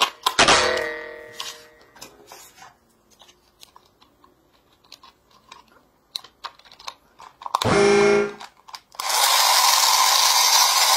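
Small plastic clicks as AA batteries are fitted into a battery-powered toy train and its battery cover is snapped shut, then, about nine seconds in, the toy's small electric motor starts and its plastic gear wheels run with a loud steady whir and a constant whine. A decaying twanging tone sounds in the first second or so, and a short tone burst comes just before the motor starts.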